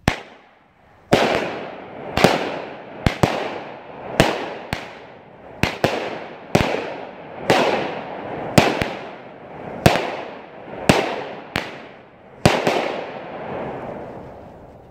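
A 200-gram, 12-shot Dragon Blade "Bright Lights" firework cake firing. A launch thump opens it, then comes a string of sharp bangs about once a second as the shells break overhead, each followed by a fading hiss.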